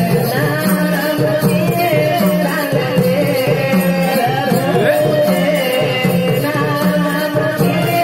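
Marathi folk devotional music: a two-headed barrel drum played by hand keeps a steady repeating beat under a singing voice and a held droning tone.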